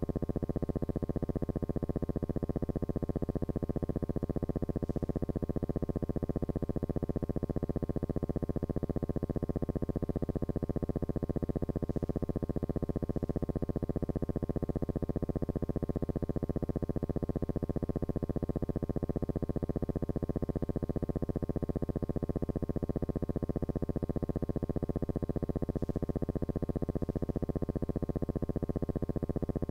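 Steady synthesizer drone of layered held tones that waver slowly, with a fast buzzing pulse running under them.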